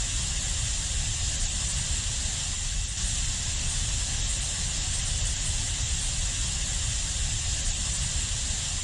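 Ambient 'space sound' track: a steady, even hiss strongest in the high treble over a low rumble, with no tones, beats or changes.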